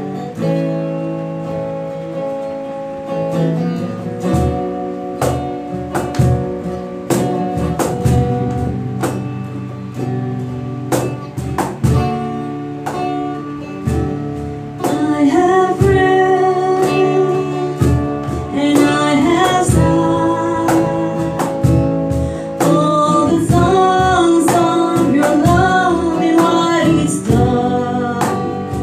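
Acoustic worship music: acoustic guitar and ukulele strumming chords over a steady percussion beat. A woman's voice comes in singing about fifteen seconds in.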